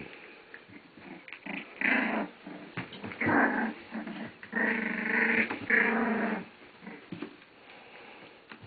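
Border Collie puppies about two and a half weeks old play-growling as they wrestle, in four short pitched bouts, the longest about a second near the middle.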